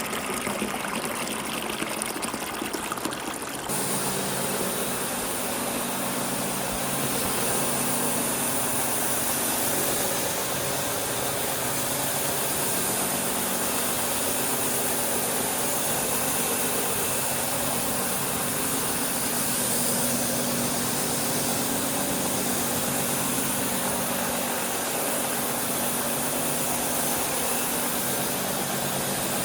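Floor-cleaning equipment running with a steady hum and a constant high whine, settling into a slightly louder, even drone about four seconds in.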